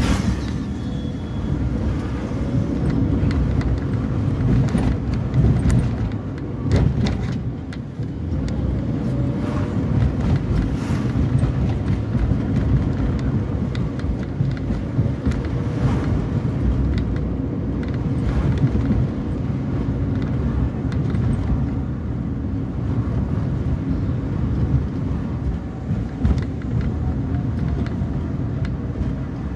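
Car engine and tyre road rumble heard from inside the cabin while driving, steady and low, with a few brief light knocks and rattles along the way.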